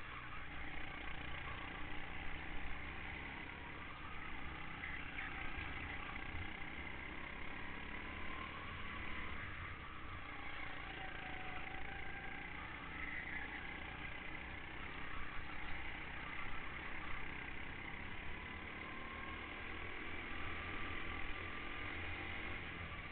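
Go-kart engine running continuously, heard from on board the kart amid road and wind noise, its pitch drifting up and down with the throttle through the corners.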